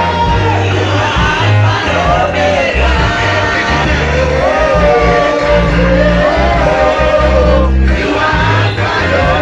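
Loud live worship music: a voice singing a melody over a band with heavy bass notes.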